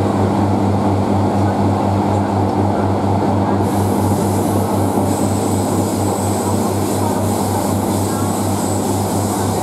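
Class 142 'Pacer' diesel multiple unit heard from inside the carriage while running: a steady, loud drone from its underfloor diesel engine, with a fast, even pulse in the low note, over a dense running noise from the train on the track.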